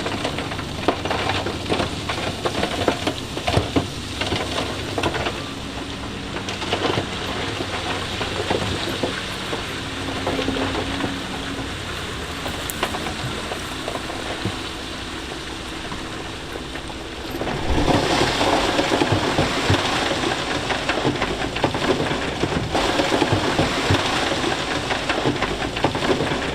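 Loose stone rattling, crunching and tumbling as heavy equipment moves it, over a diesel engine running steadily. About 17 seconds in, the stone noise swells into a louder, continuous rush.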